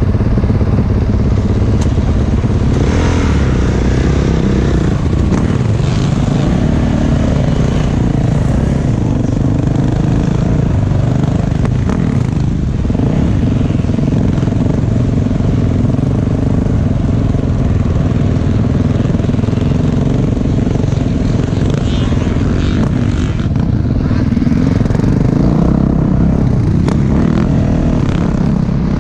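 Dirt bike engine running loudly while being ridden, its pitch shifting up and down with the throttle.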